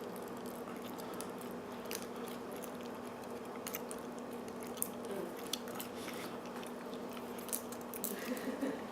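A lock pick raking in the keyway of a Chicago Lock Company wafer padlock: irregular light metallic clicks and scrapes as the wafers are worked, with no opening. A steady low hum runs underneath.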